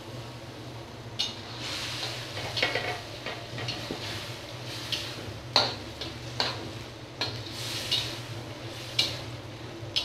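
A spatula stirring and scraping a thick dried-fish curry around a metal wok, with several irregular scrapes and clacks against the pan over a soft sizzle from the simmering gravy. A steady low hum runs underneath.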